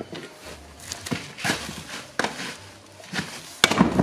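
A few scattered knocks and clanks from a car wheel and a jack being handled on a workshop floor, with a louder cluster of clanks near the end.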